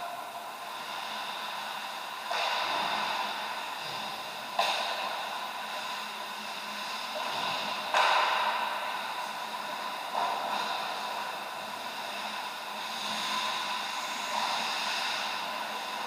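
Ice hockey game sounds on a rink: skate blades scraping across the ice in swells over a steady hum, with two sharp knocks about four and a half and eight seconds in.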